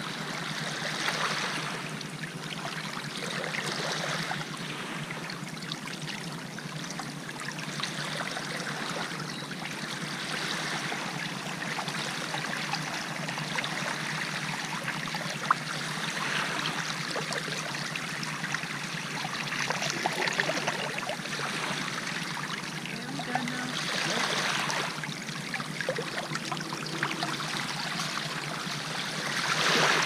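Shallow water running and trickling steadily down a narrow channel freshly cleared through beach sand, the drainage ditch flowing again after being plugged. The flow swells in loudness a few times, and there is a single sharp tick about halfway through.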